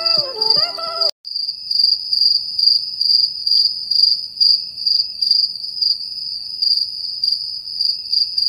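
Crickets chirping in a steady, pulsing high trill, starting about a second in as music cuts off.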